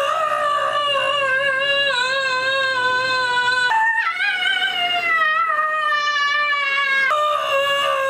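A girl screaming in long, held notes, three in a row, each sliding slowly down in pitch. The second starts noticeably higher, about four seconds in.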